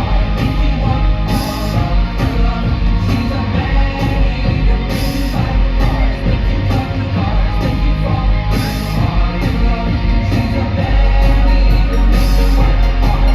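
Loud rock-style music with a steady beat, its bass getting heavier near the end.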